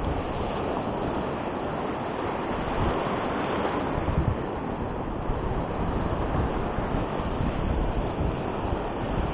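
Ocean surf breaking and washing over a rocky reef shelf: a continuous rush of whitewater, with wind buffeting the microphone in gusts.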